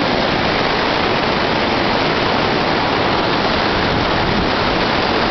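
Whitewater rapids of a small waterfall stream, running high after the water rose, make a loud, steady rushing roar.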